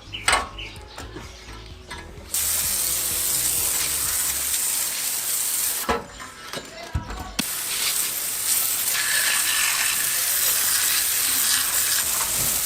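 Spray painting: a steady hiss of paint spray that starts about two seconds in, stops for about a second and a half near the middle, then starts again. A few light knocks come before the first burst.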